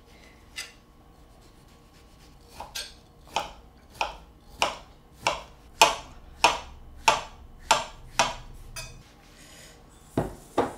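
Kitchen knife slicing a banana into rounds on a cutting board: a steady series of about ten sharp knocks of the blade on the board, roughly one and a half a second, with two more knocks near the end.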